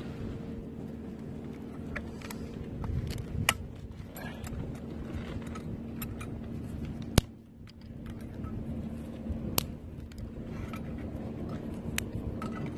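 Hands loading twigs into and fitting pieces of a folding steel stick-burning camp stove: scattered sharp clicks and light metallic clatters, the loudest about seven seconds in, over a steady low hum.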